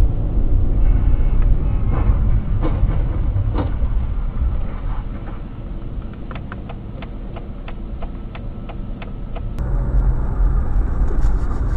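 Steady low rumble of a moving car's engine and tyres, with scattered clicks through the middle. About ten seconds in, a different recording cuts in with a louder rumble of the same kind.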